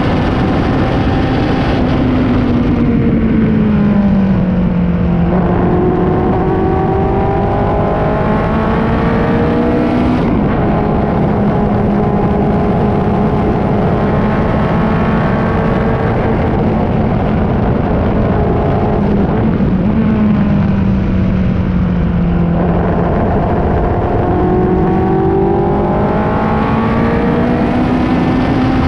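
Racing car engine running continuously at speed on track, its note dropping and climbing smoothly as the revs fall and rise, with a steadier stretch in the middle.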